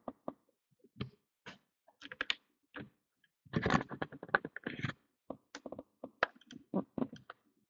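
Irregular clicks and taps of hands working a computer while a list is scrolled on screen, with a denser flurry of them around the middle.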